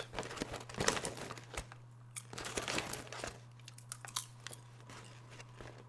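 A man biting into and chewing crunchy food: irregular crisp crunches and clicks.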